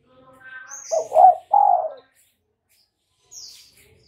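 Spotted dove cooing once: two short notes then a longer, falling note, about a second in. Fainter high chirps come before and after it.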